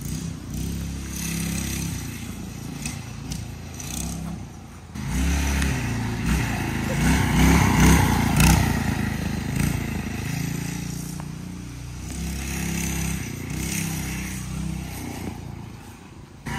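Predator 224 single-cylinder four-stroke engine on a scratch-built off-road scooter, revving up and down as the scooter is ridden. It is loudest about halfway through, and briefly drops off a little after four seconds and again near the end.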